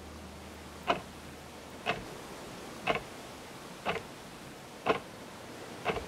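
Steady clock-like ticking, one sharp tick about every second, over a faint steady hiss.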